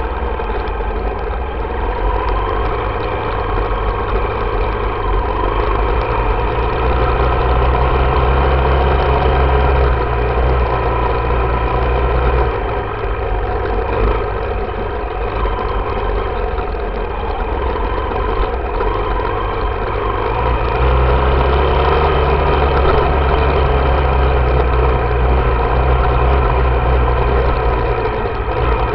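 Dirt bike engine running under way, its note heavier for several seconds at a time, easing off around the middle and picking up again in the second half as the rider works the throttle.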